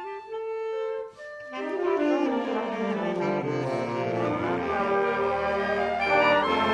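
School concert band playing: a few woodwinds hold notes, then about a second and a half in the full band comes in with brass, the low instruments stepping downward beneath.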